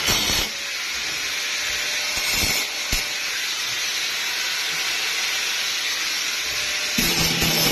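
Angle grinder grinding the steel body panel, a steady hissing grind.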